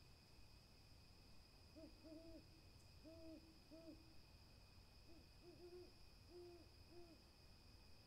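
An owl hooting faintly: short, low hoots in two loose runs of four or five notes, the first run about two seconds in and the second about five seconds in.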